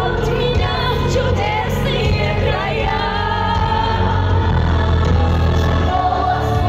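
Loud live pop music through a concert sound system in a large hall: singing voices over a steady heavy bass line.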